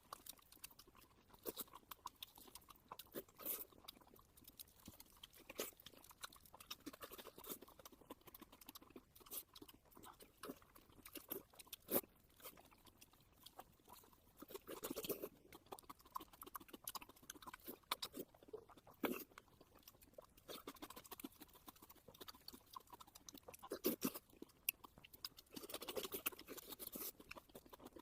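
A person chewing and biting food close to the microphone: crunching and wet mouth clicks, with louder bites every few seconds.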